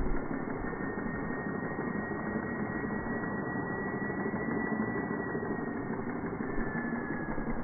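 Corded jigsaw running steadily as its blade cuts through a plastic water bottle full of water, the audio slowed down along with the slow-motion picture.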